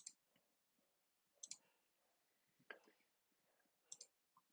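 Faint computer mouse clicks, about four of them a second or so apart, in near silence.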